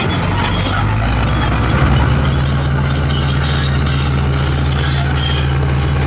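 Komatsu D65P crawler bulldozer's diesel engine running steadily as the dozer travels forward; the engine note steps up a little and briefly gets louder about two seconds in, then holds steady.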